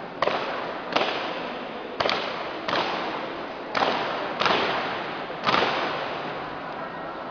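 A drill team striking in unison, seven sharp percussive hits about a second apart in an uneven rhythm, each followed by a long echo through a large hall.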